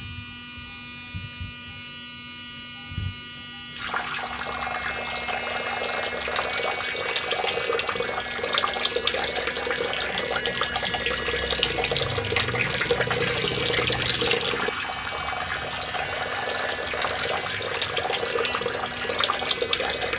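Small battery-powered motor of a homemade miniature water pump running with a steady whine. About four seconds in, water starts gushing from its outlet pipe and splashing into a small basin, and the splashing goes on over the motor's whine.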